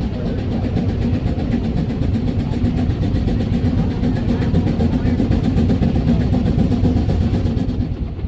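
Case 65 hp steam traction engine driving a sawmill by belt, working under load with a steady rapid exhaust beat of about six strokes a second over a low rumble of the mill. It eases off near the end.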